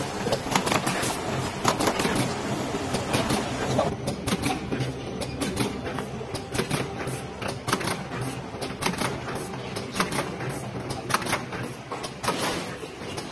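Automatic paper tube labeling machine running: a steady mechanical hum with rapid, irregular clicking and clattering.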